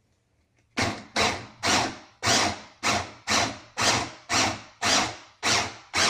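Manual pull-cord food chopper being pulled over and over, about two pulls a second, each giving a quick whirr of the spinning blades that dies away, as it chops cooked chickpeas into coarse shreds.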